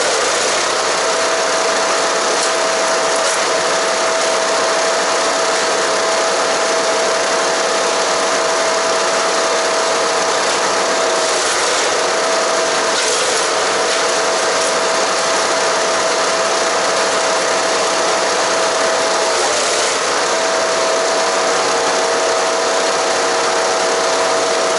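Haige 15 hp wood chipper (HG-15HP-GGS) running loud and steady while shredding cedar and cypress branches. A steady whine runs over the grinding noise and sags briefly three times: once about halfway through, again a couple of seconds later, and once more near the three-quarter mark.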